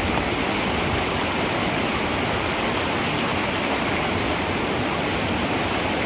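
Whitewater river rapids rushing steadily.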